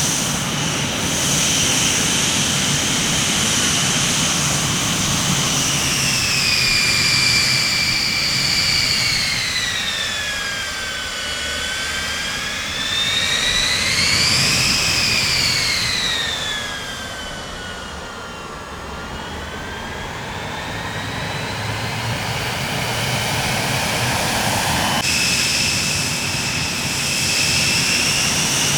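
Jet aircraft engines running with a high turbine whine. The whine slides down in pitch, rises again briefly near the middle, then falls once more. About 25 s in it changes abruptly to a steady high whine.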